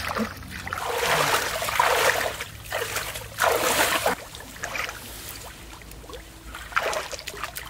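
Shallow muddy water splashing and sloshing as people wade and sweep their hands through it, in a few uneven bursts.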